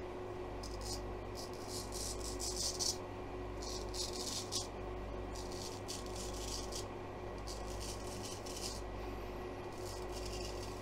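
Chinese Lark straight razor cutting week-old stubble through shaving lather on the neck: about six rustling scrapes of roughly a second each.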